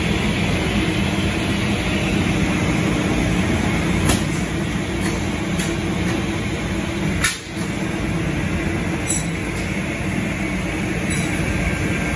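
Brandt KD 67 C edgebander running: a steady machine hum, with a few sharp clicks spread through it and a brief dip about halfway.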